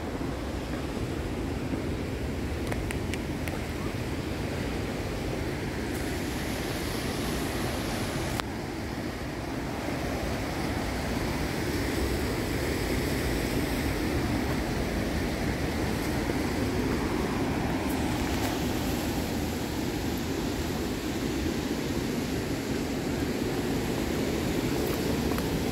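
Ocean surf breaking against a rocky shore, heard as a steady wash of noise, with wind blowing across the microphone.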